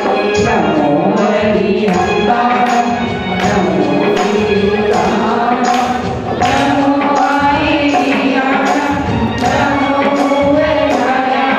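A woman singing a devotional song into a handheld microphone over backing music with a steady beat.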